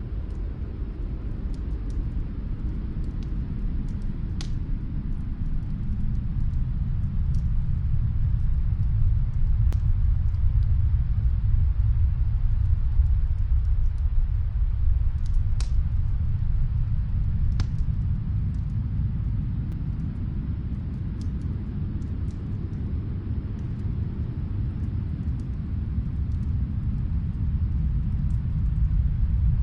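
Snowstorm wind blowing as a low, steady rumble that swells about a third of the way in, eases later and builds again near the end. Sparse faint crackles of a wood fire come through it.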